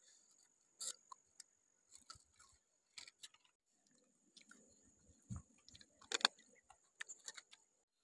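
Faint chewing and crunching of food, with scattered short clicks, the loudest about six seconds in, over a faint steady high tone.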